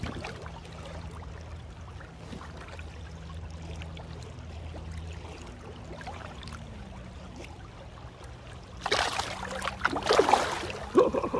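River water running steadily, then a burst of splashing about nine seconds in as a smallmouth bass is let go in the current and kicks free of the hands.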